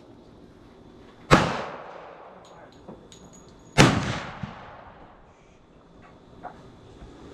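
Two gunshots about two and a half seconds apart, each a sharp crack trailing off in a long echo, with a few faint clicks between them.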